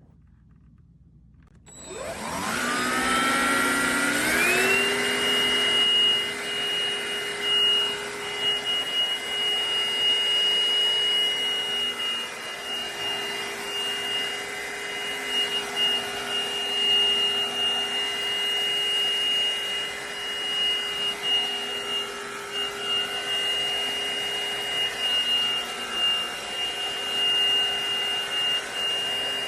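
Black+Decker PowerSeries+ 20V MAX cordless stick vacuum switched on about two seconds in, its motor whine rising in pitch as it spins up, then running at a steady high whine.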